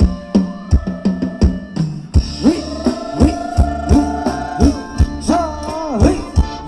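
Live Thai ramwong dance band playing: a drum kit keeps a fast, steady kick-drum beat, about three strokes a second from about two seconds in, under a long held melody note that wavers and then bends up and down near the end.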